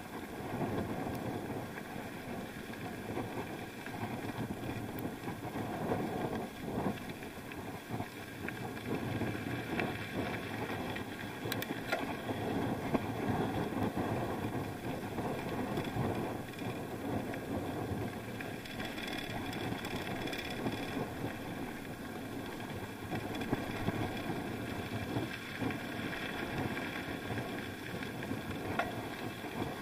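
Continuous riding noise picked up by an action camera on a bike: a steady, rough rumble with a few sharp knocks, one about twelve seconds in.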